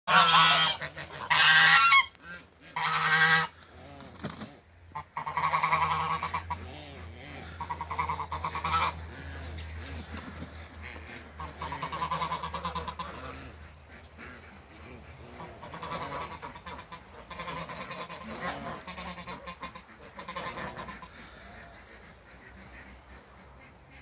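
A flock of domestic geese, grey Toulouse geese among them, honking: three loud honks in the first few seconds, then softer, repeated honking that dies down near the end.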